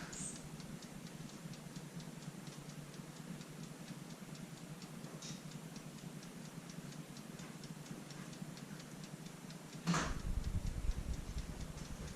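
Faint, rapid, even ticking of a small mechanism. About ten seconds in comes a single sharp knock, followed by a low rumble.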